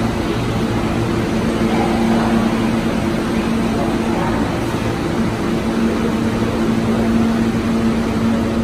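R160A subway car standing in a station, its equipment giving a steady electrical hum with a constant low drone and a rushing, air-like noise.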